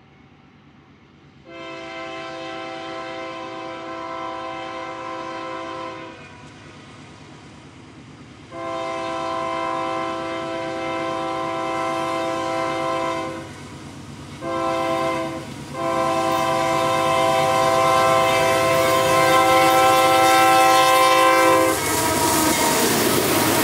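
Union Pacific freight locomotive's multi-chime air horn sounding the grade-crossing signal: long, long, short, long, each blast louder as the train comes closer. Near the end the horn stops and the lead locomotives pass close by with a rising rush of engine and wheel noise.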